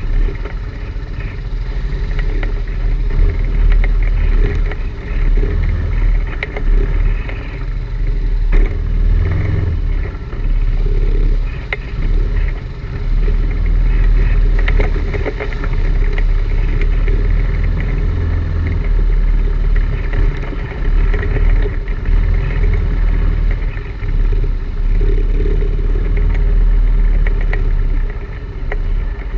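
ATV engine running as the machine climbs a rough, muddy trail, its level rising and falling with the throttle, with frequent rattles and knocks from the machine jolting over roots and ruts.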